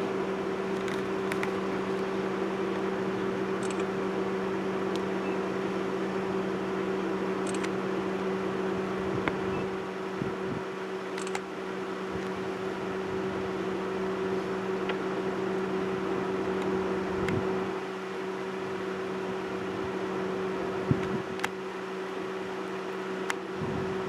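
A steady mechanical hum with a low, even tone, over a light hiss, with a few faint clicks.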